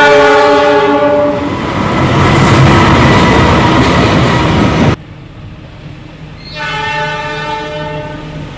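A diesel locomotive horn sounds a chord of several notes that stops about a second and a half in. The loud rushing rumble of a train passing close by follows. After an abrupt cut there is a quieter stretch with a steady low engine tone, and another train horn chord sounds from about six and a half seconds in to near the end.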